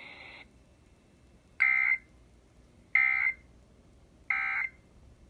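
Emergency Alert System end-of-message signal: three short, identical bursts of shrill SAME data tones, each about a third of a second long and spaced a little over a second apart, received over a radio. They mark the close of the test alert.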